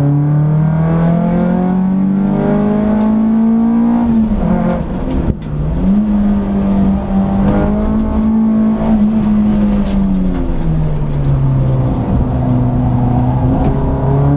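Peugeot 206 S16's 2.0-litre four-cylinder engine at high revs on a race track, heard from inside the cabin. The revs climb steadily, dip briefly about four to five seconds in, hold high, then fall back near ten seconds in and start climbing again.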